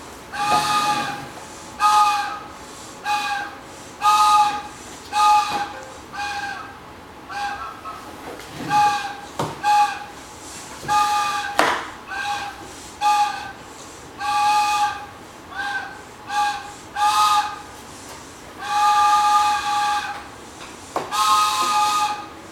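Toy choo-choo train whistle blown by a toddler in about twenty uneven toots, each a breathy chord of several steady tones. Most are short, and one runs longer a little before the end.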